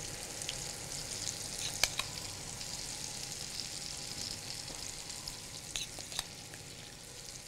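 Moong and maash daal vadas deep-frying in hot oil in a frying pan: a steady sizzle with a few sharp clicks, about two seconds in and twice near six seconds.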